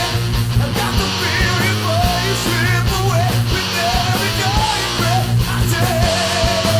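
Rock music: a loud, steady band track with electric guitar and drums, and a wavering lead melody line over it.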